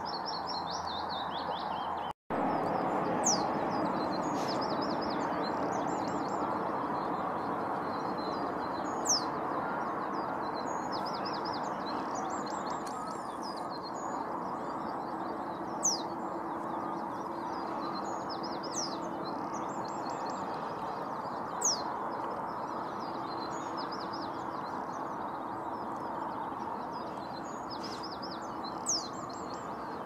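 Male reed bunting singing, repeating its short song phrase about every six seconds, each phrase with a sharp high note, over a steady rushing background noise. Other small birds twitter between the phrases, and the sound drops out briefly about two seconds in.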